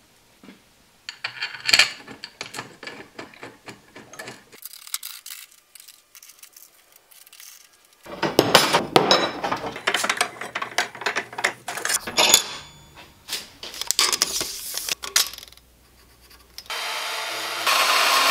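Metal being worked by hand: runs of scraping, rasping strokes with knocks, with a quiet gap between them. Near the end a power saw starts up with a steady running sound as it cuts a steel bar.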